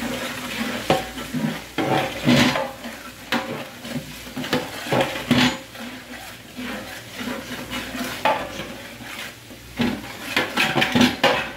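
A long metal ladle stirs and scrapes a thick onion-and-tomato masala in a large aluminium pot, with irregular clanks against the pot and the masala sizzling underneath. The loudest scrapes come about two and a half seconds in, about five seconds in, and in a cluster near the end.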